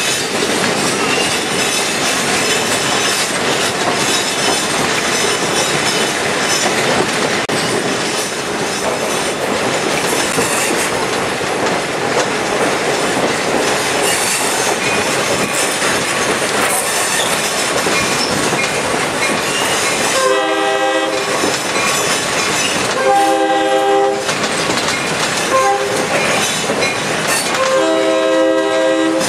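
A passenger train rolling along its rails, with a steady clatter and rumble of wheels. In the last third the CF7 diesel locomotive's air horn sounds the grade-crossing signal: two long blasts, a brief short one, then a final long blast.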